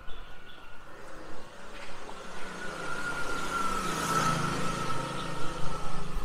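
A motor vehicle passing close by on a city street: its engine hum and road noise swell to a peak about four seconds in, then fade.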